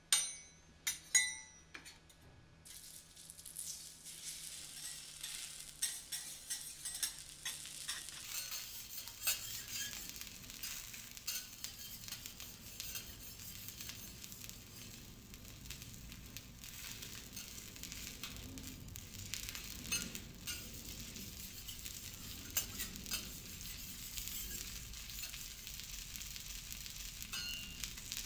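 A few ringing metal clinks, then food starts sizzling on a hot teppanyaki griddle about two seconds in and keeps sizzling steadily, with scattered short clicks and taps over the sizzle.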